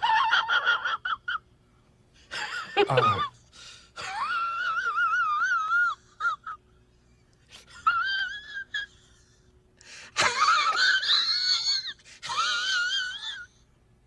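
Laughter sound effect: a high-pitched laugh in about six fits. The first fit is a quick run of short ha-ha pulses; the later ones are drawn out with a wobbling pitch.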